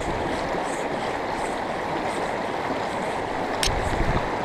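Frying Pan River water rushing steadily over its bed. There is a single sharp click about three and a half seconds in, followed by a brief low thump.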